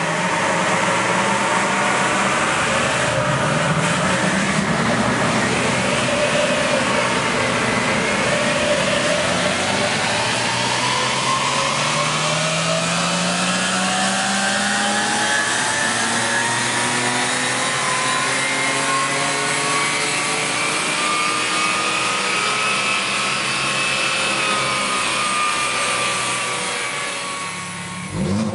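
BMW 335i's N54 twin-turbo 3.0-litre inline-six running under load on a chassis dyno during a power run, its pitch climbing slowly and steadily for about twenty seconds, then easing off and fading near the end.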